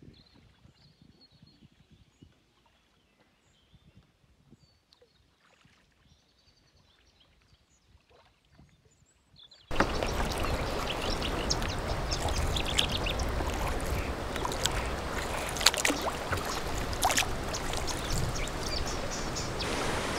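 Faint bird chirps over near quiet, then a little under halfway through a loud rushing of water sets in suddenly, with scattered splashes: a kayak running down a fast, shallow, rocky stretch of river.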